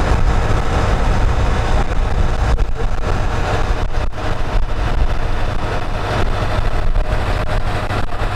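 Dewulf Field Loader 240 potato loader working beside a tractor and trailer: a steady, loud drone of diesel engines and running conveyors, with a few brief dips in level.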